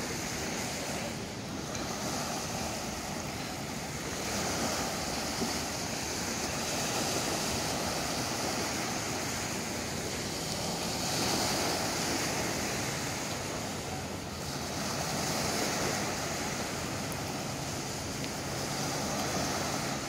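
Small waves washing onto a sandy beach, swelling and easing every few seconds, with some wind on the microphone.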